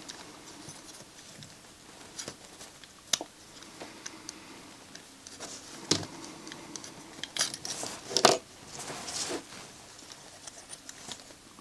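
Small clicks, taps and scrapes of plastic and metal parts being handled as a CD player's laser pickup is worked out of its mechanism. The sharpest clicks come about three, six and eight seconds in, with a short scraping stretch just after the last one.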